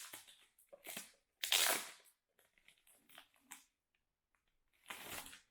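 Paper or plastic packaging handled by hand, rustling and crinkling in several short bursts, loudest about one and a half seconds in and again near the end, with a few small ticks between.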